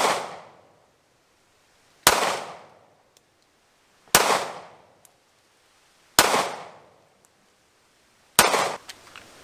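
Five single 9mm pistol shots from a Smith & Wesson M&P Shield 2.0, evenly paced about two seconds apart. Each is a sharp crack that trails off over about a second.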